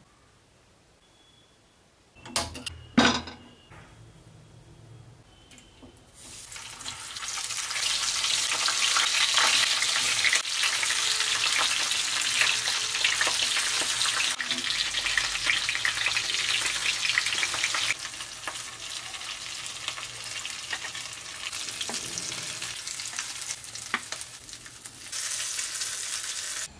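Stuffed green chillies (bharwa mirch) sizzling in hot oil in a kadhai, a dense hiss that starts about six seconds in, with small scraping clicks as a spatula turns them. A few sharp knocks about two to three seconds in are the loudest sounds.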